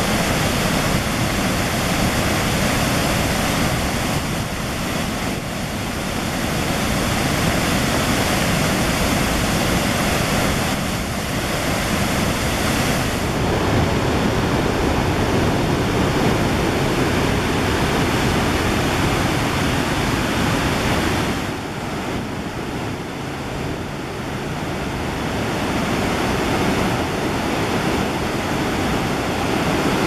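The Chagrin River's waterfall roaring in flood, swollen by heavy rain: a loud, steady rush of water pouring over the falls and churning in the pool below. It eases briefly a few times, most clearly about two-thirds of the way through.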